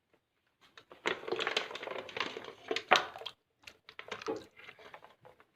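Boiled snails' hard shells clattering and crackling as they are handled and broken open, with one sharp crack about three seconds in and scattered clicks after.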